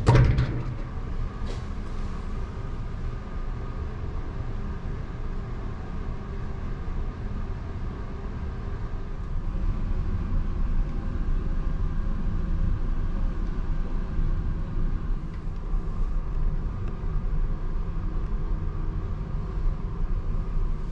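Steady low rumble of the ferry's engines and hull vibration heard inside the ship. Right at the start a door handle clunks as the door is opened.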